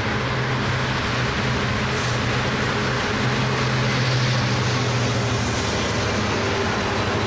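Diesel train engine running with a steady low drone over track rumble, swelling slightly midway, with a brief hiss about two seconds in.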